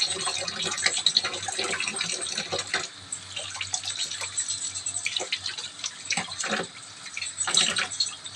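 Water running from a kitchen tap into a sink, with scattered light knocks and clinks of things being handled.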